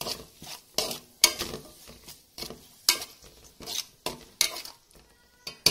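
A spoon scraping and knocking against a metal pan while stirring tomatoes and onion masala being sautéed in oil, in irregular strokes about once or twice a second, with a low sizzle between them.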